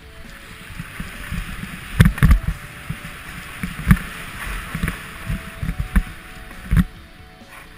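Skis hissing and scraping steadily over packed snow on a fast downhill run, with several dull thumps as the skis hit bumps, the loudest about two seconds in.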